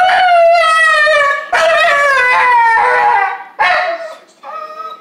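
Husky howling in protest: two long, drawn-out howls, the second sliding down in pitch, then a few shorter calls near the end.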